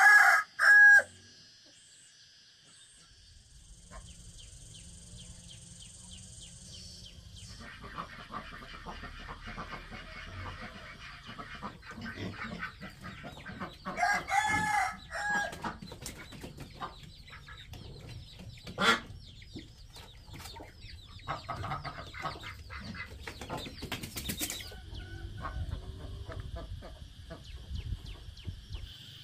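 Chickens clucking and calling, with loud calls right at the start, again about halfway through, and once more shortly after. Scattered light taps and rustling run through the middle and latter part.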